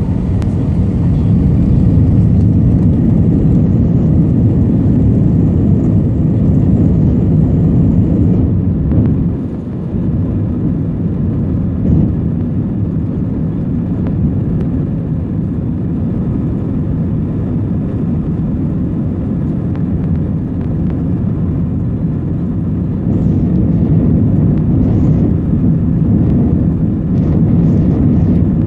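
Airbus A320 cabin noise heard from a window seat behind the wing: the steady low rumble of the jet engines and the wheels as the airliner rolls along the runway, dipping briefly about nine seconds in and growing a little louder near the end.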